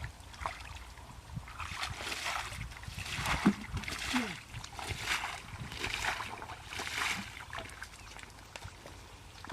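Water splashing and sloshing in repeated bursts, about one a second, then fading near the end.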